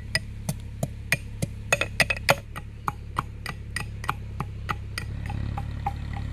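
Ginger and garlic being pounded with a metal mortar and pestle (haman dista): sharp, even strikes about three a second, each with a short metallic ring.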